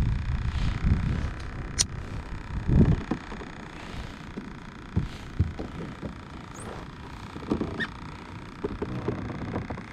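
Wind buffeting the microphone for the first few seconds, with scattered light knocks and clicks of hands and gear on a plastic kayak: a sharp click about two seconds in and a thump near three seconds.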